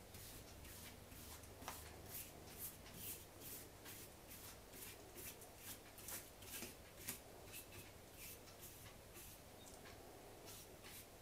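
Faint, quick swishing strokes of a small brush applying wood stain to a wooden rifle stock, about two strokes a second.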